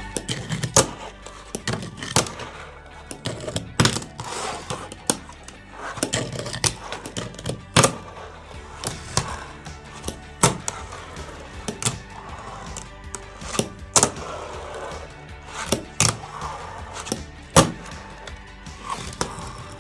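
A fingerboard doing tricks: sharp, irregular clacks of the deck's tail popping and the board landing, about one or two a second, with the bearing wheels rolling in between.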